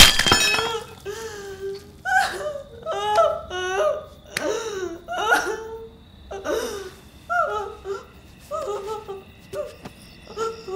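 A woman crying hysterically: short, broken sobbing cries with wavering pitch, coming about once a second. A loud sharp thud right at the start.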